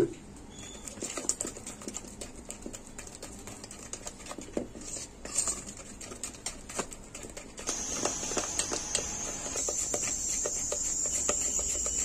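Metal spoon beating thick gram-flour batter in a steel bowl: wet slapping and irregular clinks of the spoon against the bowl. The sound grows louder and denser about eight seconds in.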